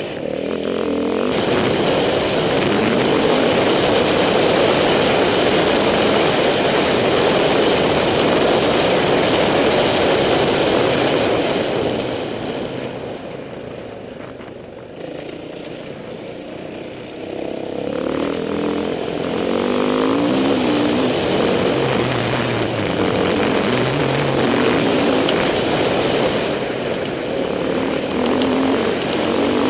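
Yamaha WR450F single-cylinder four-stroke dirt bike engine running under way, heard from a helmet-mounted camera. It holds steady and loud, drops quieter for several seconds near the middle, then rises again with climbing revs.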